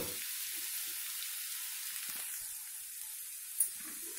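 Ivy gourd (tindora) and onion stir-fry sizzling steadily in a frying pan, with one light knock about three and a half seconds in.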